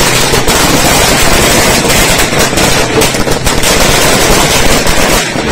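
A string of firecrackers going off in a rapid, continuous volley of loud bangs, dying away just before the end.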